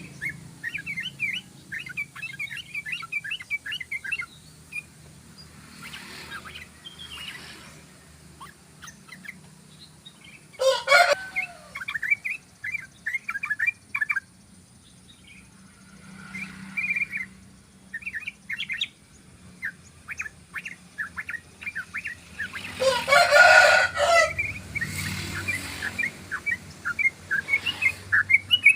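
Sooty-headed bulbul (trucukan) singing a long 'ropel' song: fast runs of short chattering notes with brief pauses. Two louder, fuller calls stand out, about a third of the way in and again some four fifths through.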